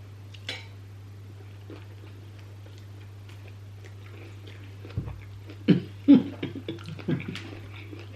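Chopsticks and cutlery clicking and knocking against plates, a single click early and then a quick run of sharp taps a little past halfway, over a steady low hum.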